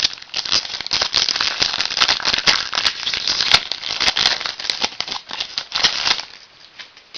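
A trading-card pack wrapper crinkling and tearing in the hands as the pack is opened, a dense crackle that stops about six seconds in.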